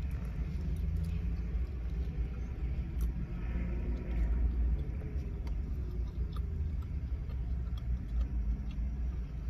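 Car engine idling: a steady low rumble, with a few faint small clicks over it.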